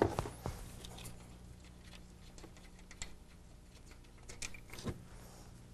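A few faint, scattered clicks and taps from a ratchet wrench and hands working on a Buick Roadmaster engine while its spark plugs are removed, over a low steady hum.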